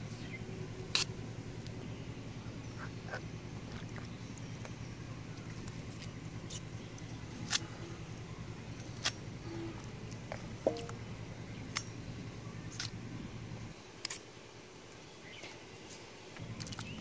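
Sharp, irregular clicks of a boti (a curved, foot-held cutting blade) slicing through water hyacinth stems, about a dozen cuts, over a steady low hum that drops out for a couple of seconds near the end.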